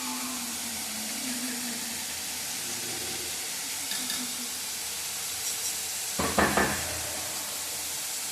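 Food frying in a pan with a steady sizzle, stirred with a utensil, with a louder clatter of the utensil against the pan about six seconds in.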